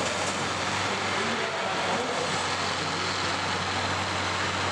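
Diesel engines of demolition-derby combine harvesters running hard as the machines push against each other: a steady, even engine noise with a low hum and no distinct crashes.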